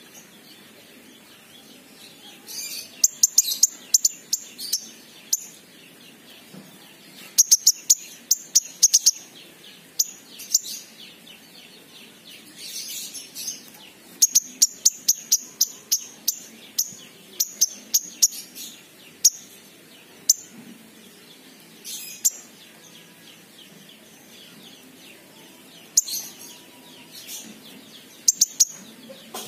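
Caged sunbird (king konin) calling: runs of sharp, high, rapid chirps in bursts, with short pauses between.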